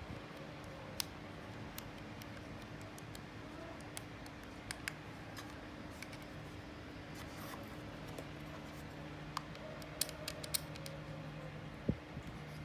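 Scattered small clicks, taps and scrapes, as of objects being handled, over a steady low hum; a cluster of sharper clicks comes about ten seconds in.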